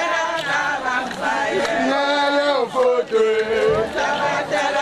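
Several voices singing and chanting together, a traditional Ejagham funeral song with held, gliding notes that overlap one another.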